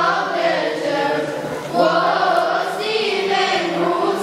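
Coptic children's choir of boys and girls singing a hymn together.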